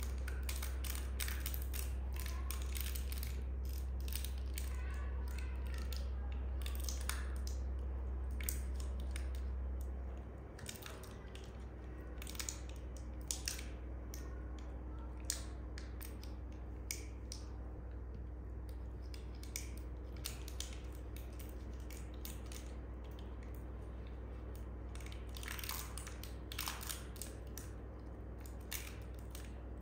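Macaque grooming a baby macaque: many small irregular clicks and crackles from fingers and mouth picking through fur and a knitted sweater. Under it a low steady hum that drops in level about ten seconds in.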